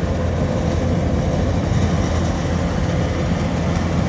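Kubota DC-105X rice combine harvester running steadily as it cuts standing rice, a continuous engine drone with a steady hum.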